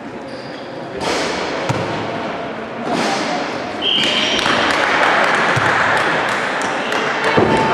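Indoor tchoukball game in a sports hall: ball thumps, short shoe squeaks and players' voices, all echoing. From about four and a half seconds in, a louder broad hiss of sound fills the hall.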